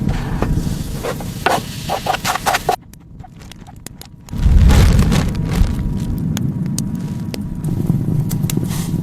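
Low rumbling wind buffeting the microphone, with scattered crackles and rustling. The rumble drops away suddenly about three seconds in and returns louder a second and a half later.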